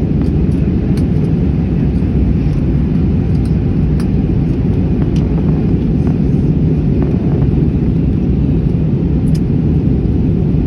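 Airbus A321 airliner in flight, a loud steady low rumble of its engines and rushing air, with a few faint clicks.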